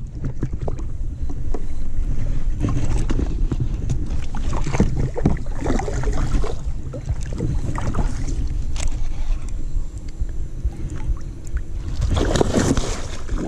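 Steady low wind and handling rumble on a chest-mounted action camera, with scattered knocks from an arm brushing the camera. About twelve seconds in, a hooked Murray cod splashes at the surface beside the kayak.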